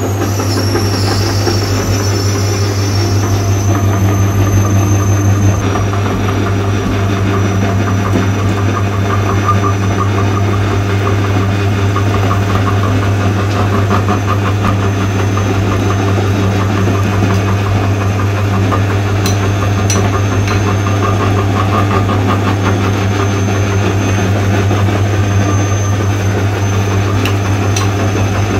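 Electric-driven meat grinder running steadily, its motor and belt-driven wheel giving a strong, even hum, while chocolate eggs are ground in its hopper. A high whine fades in the first second as it comes up to speed, and a fine fast rattle from the grinding runs over the hum after a few seconds.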